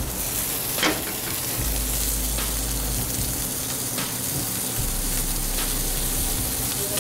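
Stuffed chicken searing in a hot sauté pan over a gas burner, sizzling steadily, with a sharp metal clank about a second in and a few lighter clinks after it.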